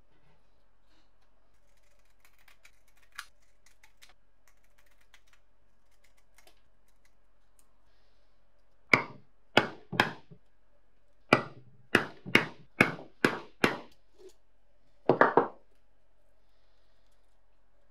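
About a dozen sharp hammer blows on a steel hollow punch, driving it through thin sheet material into a wooden block. The blows come in an uneven rhythm and end with three quick strikes.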